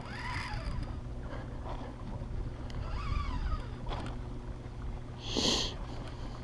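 Small boat's outboard motor idling steadily, with a short burst of hiss about five and a half seconds in.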